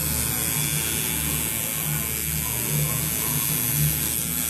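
Electric tattoo machine buzzing steadily as its needle works over the skin.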